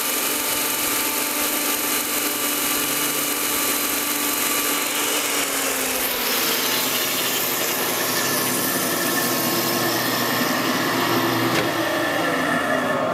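Belt-type crankshaft polishing machine running, its abrasive belt rubbing on the journals of a Porsche 911E crankshaft that the lathe turns slowly; steady machine noise whose pitch shifts about six seconds in.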